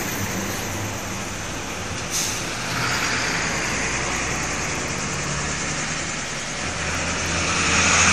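Heavy diesel trucks passing close by on the road: engine running and tyre noise, with a brief sharp hiss about two seconds in. The engine and road noise swells again near the end as a second truck comes up.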